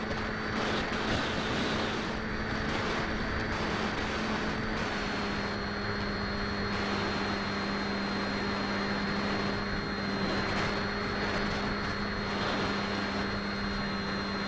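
Skywalker 1900 RC plane's electric motor and propeller running at a steady pitch: a low hum with a thin high whine that steps slightly lower about five seconds in. Heard from on board under heavy wind rush.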